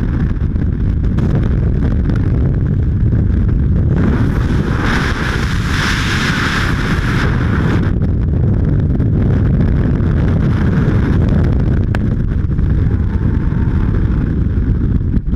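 Loud, steady rush of freefall wind blasting over a skydiver's helmet-mounted camera microphone. About four seconds in it turns brighter and hissier for some four seconds, then settles back to the low rumble.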